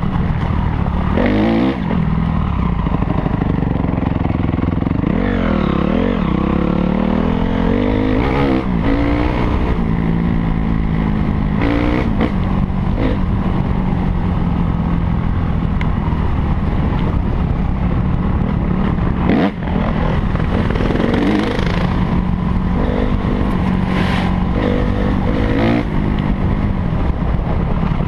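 Onboard sound of a 250 cc four-stroke single-cylinder motocross bike, its engine revving up and down through the gears while riding a dirt trail, with wind rushing over the microphone. A single sharp knock about two-thirds of the way in.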